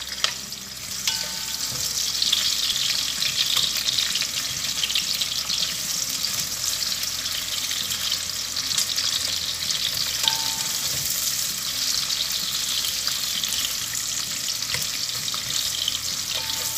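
Sliced red onion and garlic sizzling in hot oil in a pot while a spatula stirs and scrapes them. The steady frying hiss grows louder about two seconds in, as more is added.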